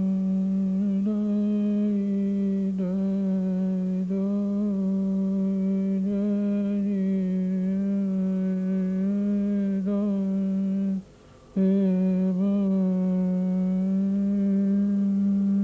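A voice humming one steady low note, held for about eleven seconds, breaking off briefly and then taking the same note up again.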